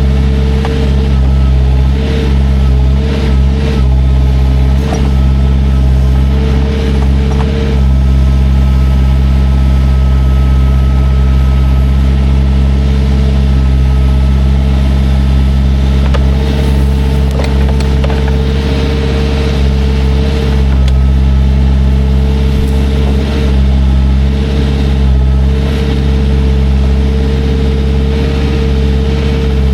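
Heavy equipment's engine running steadily under load, a deep even drone with a higher whining tone that comes and goes, and a few faint knocks and clinks.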